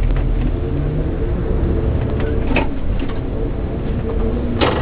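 Mitsubishi Fuso Aero Queen I coach running, its engine and road noise a steady hum heard inside the passenger cabin. Two brief sharp clicks come through, one about halfway and one near the end.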